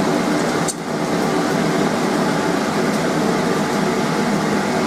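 Steady rushing noise, like a fan or air blower running, with a short dip a little under a second in.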